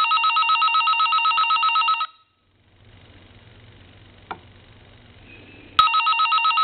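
Electronic ringer element of a Siemens Milano telephone sounding on its high setting: a fast-pulsing electronic trill that rings for about two seconds, stops, and starts again about four seconds later, following the telephone ring cadence.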